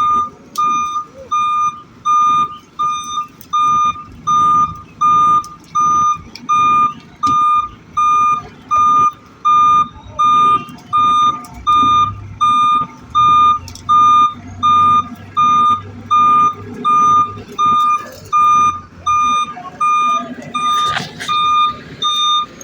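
Backhoe's reversing alarm beeping steadily at one pitch, about one and a half beeps a second, over the low rumble of its engine running. A brief sharp knock near the end.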